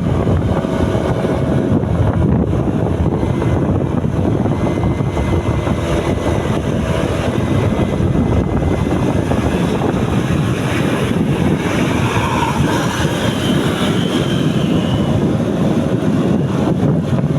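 Steady road traffic and engine noise, with wind rushing over the microphone.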